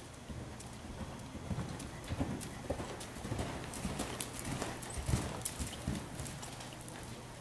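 Horse's hoofbeats on the arena's sand footing as it is ridden past, an uneven run of thuds that is loudest in the middle, over a steady low hum.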